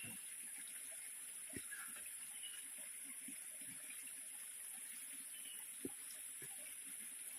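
Faint trickle of water running from a freshly cut tree root, over a steady high hiss, with a couple of soft clicks.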